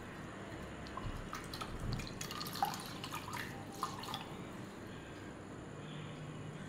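Water splashing and dripping as a wet cloth is rinsed in water, in a cluster of short drips and splashes from about one to four seconds in.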